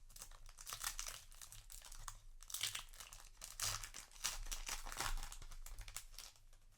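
Foil trading-card booster pack wrapper crinkling and tearing as it is opened by hand, a quick run of short rustles that dies away near the end.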